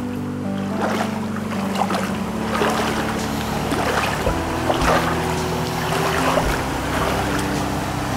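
Background music: sustained low notes that change pitch now and then over a light beat a little faster than once a second.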